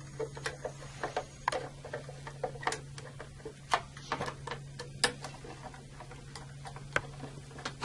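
Irregular light clicks and taps, one to three a second, from hands working on the front cover and controls of an Eaton Series NRX air circuit breaker, over a steady low hum.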